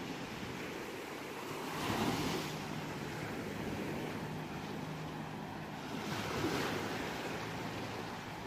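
Ocean waves washing onto a shore, a steady surf hiss with two waves breaking louder, about two seconds and six and a half seconds in.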